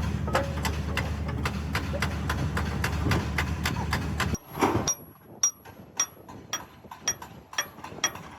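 Metal-on-steel hammering during a repair of a deformed excavator bucket ear. For the first half a rapid run of knocks, about four a second, sits over a steady low hum. About halfway the hum stops and single ringing strikes follow, about two a second.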